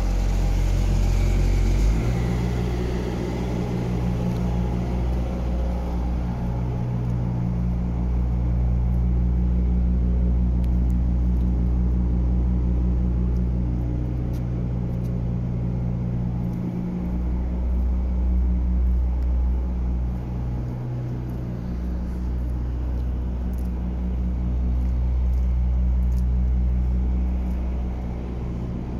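A diesel engine running steadily with a deep, even hum. Its note shifts about two seconds in.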